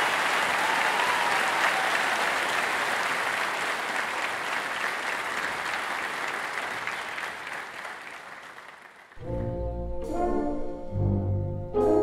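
Audience applause fading away over about nine seconds, then orchestral music starts abruptly with low held chords.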